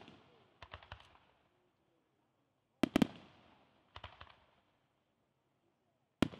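Aerial firework shells bursting in groups of sharp bangs, each group trailing off in a fading rumble. The loudest volley comes about three seconds in, with lighter ones around one and four seconds and another loud one at the very end.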